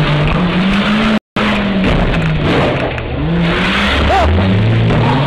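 Car engine running and revving during a roadside struggle, picked up close on a police body-worn camera, with the sound cutting out for a split second about a second in.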